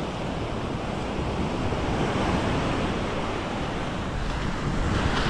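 Ocean surf washing onto a beach, with wind buffeting the microphone in a steady low rumble.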